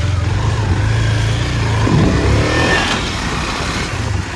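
KTM Duke 250's single-cylinder engine running as the bike rides off slowly, with a brief rise in revs about two seconds in. It has just been restarted on the self-starter after stalling with its tank run dry, so it is running on the last of its fuel.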